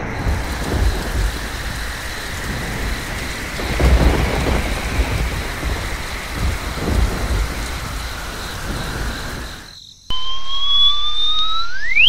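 Thunder rumbling over steady rain, swelling three times a few seconds apart. It cuts off suddenly near the end, and a rising whistle-like tone sweeps upward.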